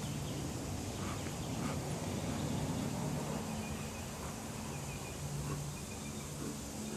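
Swarm of honeybees buzzing around an opened hive, a steady low drone that swells and fades: the bees are agitated by the hive being disturbed.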